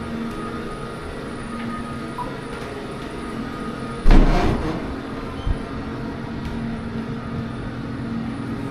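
Ghost train ride car rolling steadily along its track, with a sudden loud bang about four seconds in and a smaller knock a moment later.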